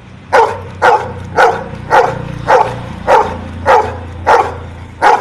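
Golden retriever barking about ten times in a steady run, roughly two barks a second, counting out the number on command.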